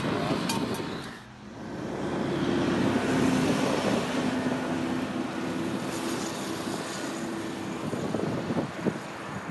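Highway traffic coming closer: vehicles run with tyre noise, and a heavy vehicle's engine gives a steady drone that holds its pitch through most of the clip.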